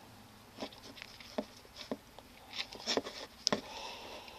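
A run of faint, irregular clicks and taps from fingers handling a hand-held iPod as it boots.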